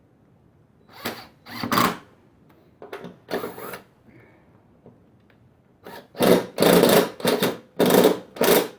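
Cordless impact driver run in a series of short bursts, tightening 3/8-inch bolts on a lawnmower's blade-adapter cover, with several bursts close together near the end; the user suspects its battery is running low.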